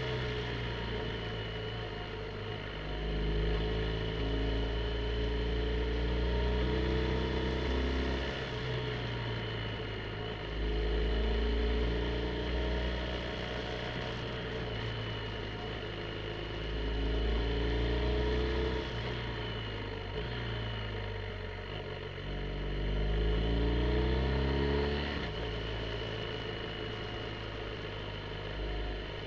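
BMW R1250 GSA's boxer twin engine under way, revving up in about four strong swells of acceleration out of the bends and dropping back off the throttle in between.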